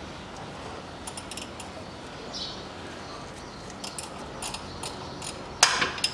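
Hand tools clicking and clinking on the water-pump pulley bolts as they are loosened, with one sharp, much louder metallic clank near the end.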